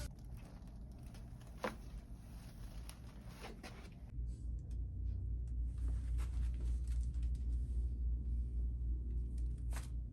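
Chiropractic neck adjustment: one sharp crack from the cervical joints about two seconds in, with a few fainter clicks after it. Soft rustling of hands and clothing and a low steady hum run underneath.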